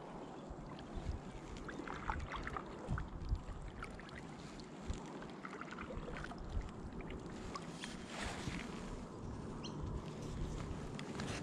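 Kayak moving on calm water: water lapping and trickling against the hull, with scattered small knocks and a low rumble on the microphone.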